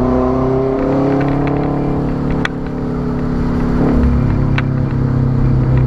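Turbocharged Subaru WRX flat-four running through an exhaust with its muffler removed: a loud, deep drone whose pitch falls slowly as the revs drop over the first few seconds, then holds steady.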